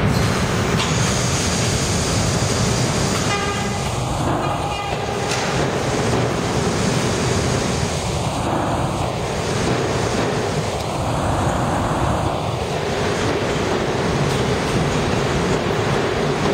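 New York City subway trains running through an underground station: a steady, loud rumble of wheels on rails and traction motors as a train pulls in. A short horn blast sounds about four seconds in.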